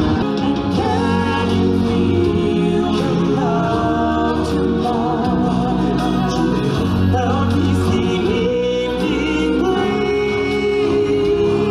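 Live stage-show music: a woman sings into a microphone with vibrato over a full accompaniment and backing voices, steady and loud throughout.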